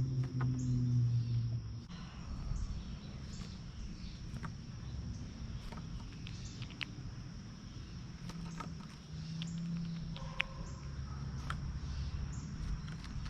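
Insects droning steadily in one high pitch, with short high chirps and scattered sharp clicks over it. A low hum fades out about two seconds in.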